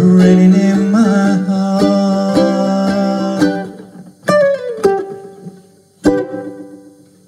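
Ukulele strumming the closing chords of a song under a long held sung note; the strumming stops after about three and a half seconds, then two last single strums ring out and die away.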